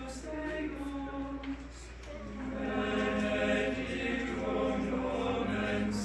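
Men's choir singing a cappella in sustained notes. The singing swells louder and fuller about two seconds in.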